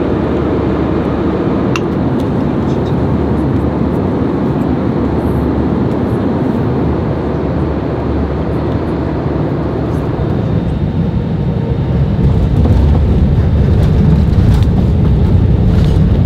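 Steady rumble and hiss of an airliner cabin with its jet engines running, growing louder and deeper about twelve seconds in.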